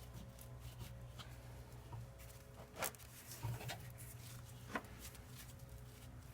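A few light metallic clicks and knocks from battery cable clamps being handled and pushed onto the battery posts, over a low steady hum.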